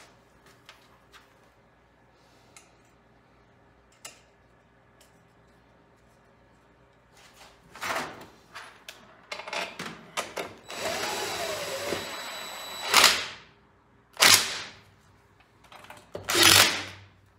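A handheld power tool, drill-like, runs in several short bursts in the second half, including one steadier run of about a second and a half. Before that there are only a few light clicks of parts being handled.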